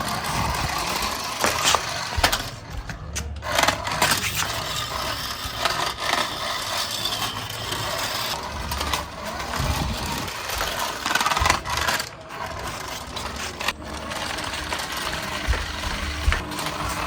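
A toy remote-control car's small electric motor and gears running, with rattling and scattered knocks.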